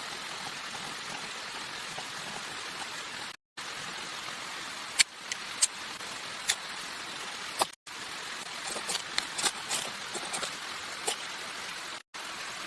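Steady water-like hiss, like rain or running water, with a scatter of sharp clicks and snaps through the second half. The sound drops out completely for a moment three times.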